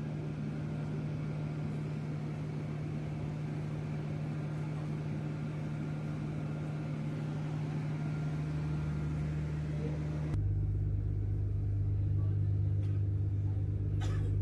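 Steady low drone of a ferry's engines and machinery heard on deck. About ten seconds in it changes abruptly to a deeper, louder hum.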